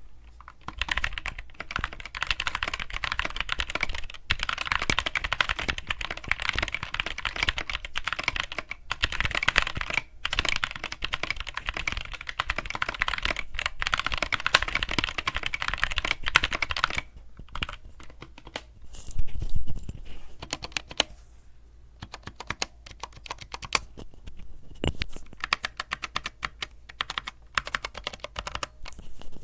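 Fast, continuous typing on a 60% mechanical keyboard with tactile Gateron optical brown switches, keys clacking in a dense stream for about seventeen seconds, then slowing to scattered key presses with a few louder knocks.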